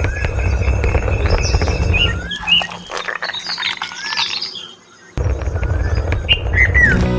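A steady low rumble, loud and pulsing evenly, drops out for a moment a little before the five-second mark and then returns. Birds chirp over it in short rising and falling calls.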